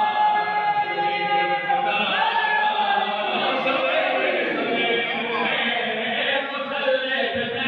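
Man chanting a devotional recital into a stage microphone, with other men's voices joining in chorus. The first couple of seconds are long held notes, after which the melody glides up and down.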